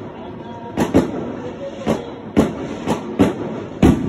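Fireworks going off close by: about seven sharp bangs at irregular intervals over a steady background rumble, the loudest coming just before the end.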